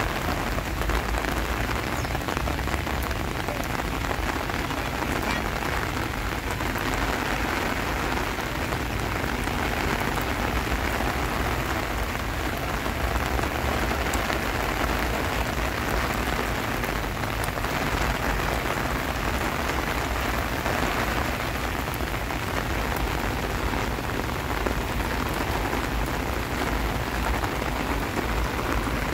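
Steady monsoon rain falling, a constant even hiss without a break.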